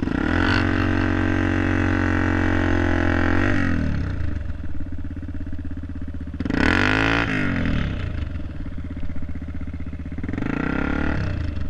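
Dirt bike engine revving under throttle for about three and a half seconds, dropping back to idle, then two shorter bursts of throttle that rise and fall, about seven and eleven seconds in.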